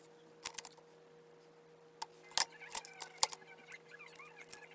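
Light clicks and taps of small phone parts handled during an iPhone 7 teardown: display flex connectors and a small metal bracket worked loose and the screen assembly lifted off the frame. The clicks come scattered and irregular, the sharpest a little past halfway.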